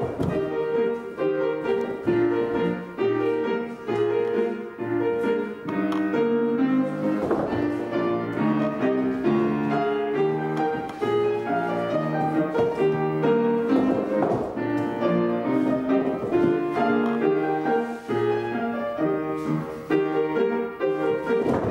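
Piano accompaniment for a ballet class exercise: a classical-style tune played at a steady, measured pace, notes and chords following one another without a break.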